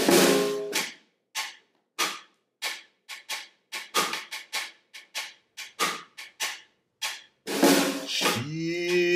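Snare drum played with drumsticks: a loud opening hit, then a run of single, quickly fading strokes, irregular at first and then about three a second, with a louder hit about seven and a half seconds in. A man's singing voice comes in near the end.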